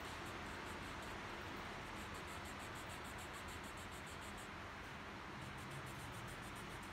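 Felt-tip marker drawing on a paper sticky note: faint, rapid scratching over a steady hiss, with a short pause a little past the middle.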